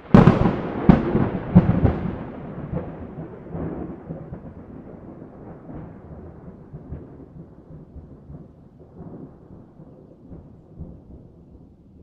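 Thunderclap: a sudden loud crack right at the start and a few more sharp cracks in the first two seconds, then a long rolling rumble that slowly fades away.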